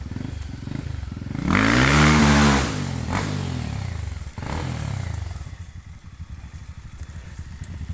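Dirt bike engine revving as the bike rides past close by. The engine note swells and rises, then falls away over about a second, starting about a second and a half in. Engines keep running at low revs for the rest of the time.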